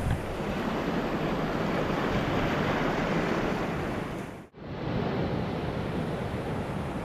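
Sea surf breaking on the shore from a rough sea, mixed with wind noise on the microphone. The sound drops out suddenly for a moment about four and a half seconds in, then returns.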